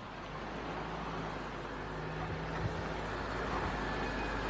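An older Mercedes-Benz saloon approaching along a road, its engine and tyre noise growing steadily louder as it nears.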